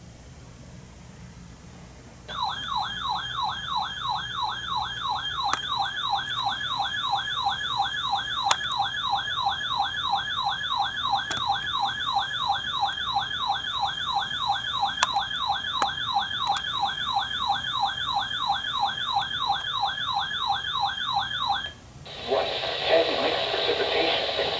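Emergency alert attention tone: a siren-like warble sweeping rapidly and evenly up and down, starting about two seconds in, running for about twenty seconds and then cutting off. A burst of noisy, hissy radio audio follows near the end.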